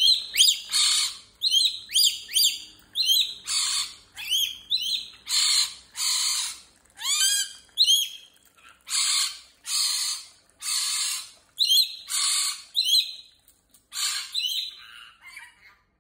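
Lorikeet calling: a quick run of harsh screeches mixed with short whistled chirps, about one a second, dropping to quieter chatter near the end.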